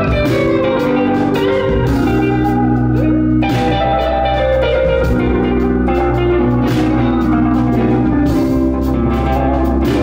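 Live band music: an electric guitar played over drums and bass, with regular drum hits and a steady bass line throughout.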